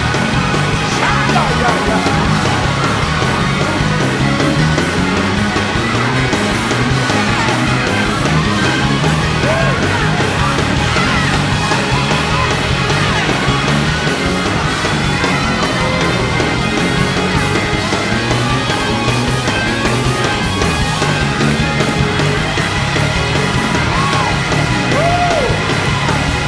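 Loud, steady band music with a dense, full sound, likely the church band playing as the service ends.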